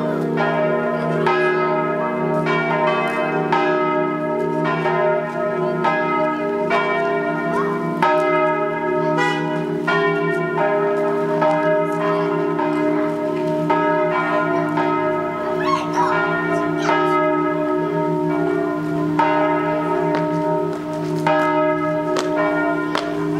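Swinging church bells from a five-bell ring tuned in a diatonic scale of E-flat, struck in an overlapping series of strokes, each left ringing over a continuous low hum from the earlier strokes.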